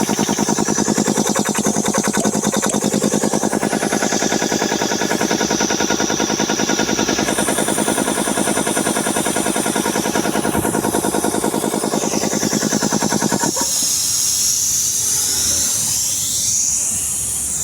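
Puma 3080 piston air compressor pump running with a fast, even pulsing beat. About 13 seconds in the pump stops suddenly and a steady hiss of escaping air carries on.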